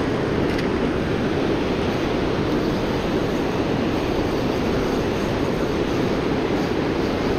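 Water pouring over a low river dam: a steady, unbroken rush.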